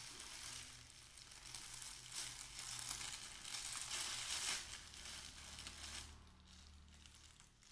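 Thin clear plastic bag crinkling as it is handled, loudest between about two and five seconds in, then fading.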